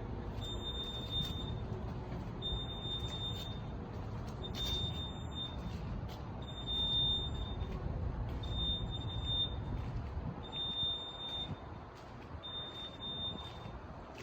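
Fire alarm sounding a high-pitched beep about a second long, repeating every two seconds, seven times, over a steady low rumble.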